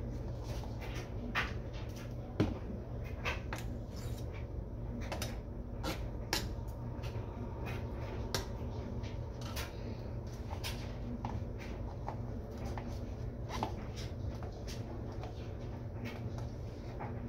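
A metal spoon clinking and scraping against a stainless steel mixing bowl and a frosting tub as frosting is scooped and stirred: scattered sharp taps, with a steady low hum underneath.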